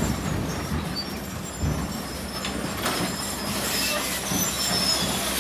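Kobelco SK200 hydraulic excavator running steadily, with scattered high metallic squeals over the engine.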